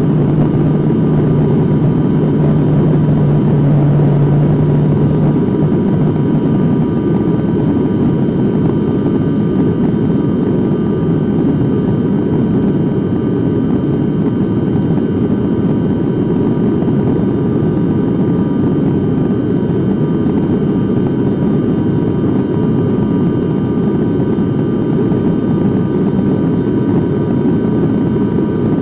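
Steady cabin drone of a Wings Air turboprop airliner in flight: a dense low roar from the propellers and engines, with several steady whining tones above it. A strong low hum in it stops about five seconds in.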